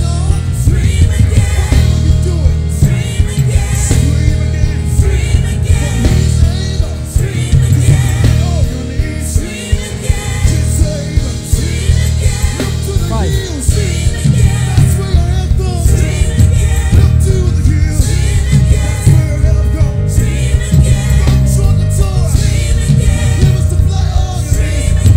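Live gospel band music: a drum kit with cymbals and an electric bass keep a steady beat under singing.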